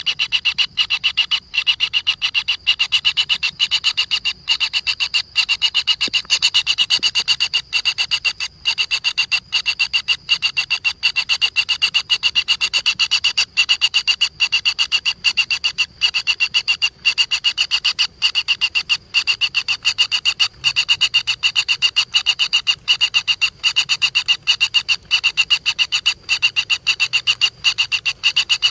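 An animal calling in a rapid, continuous pulsing trill, high-pitched, broken by short pauses every second or so.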